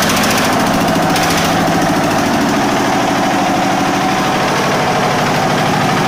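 Small radiator-cooled stationary diesel engine running steadily, with a rapid, even beat of firing strokes.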